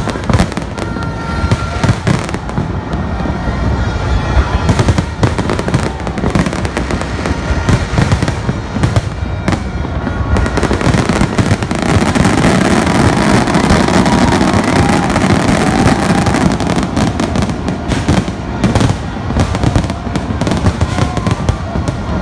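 Aerial fireworks display: a rapid run of bangs and crackling from exploding shells, thickening into a dense, louder barrage from about halfway through.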